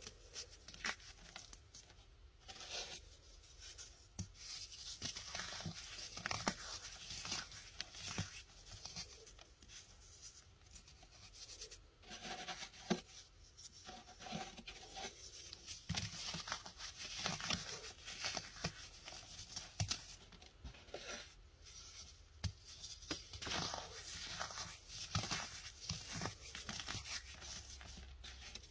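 Chunks of hardened baking soda crushed and crumbled between the fingers: an irregular run of crisp crunches and crackles, with bits and powder sifting back onto the pile.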